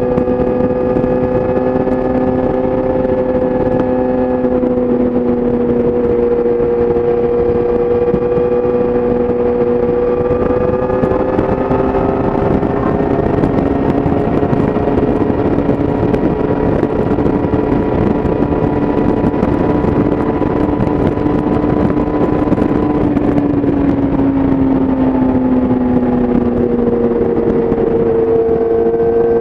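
Yamaha YZF-R6's inline-four engine with an Akrapovic exhaust, heard onboard while riding at a steady pace over wind rush. The engine note holds nearly steady, falls a little near the end, then picks up again.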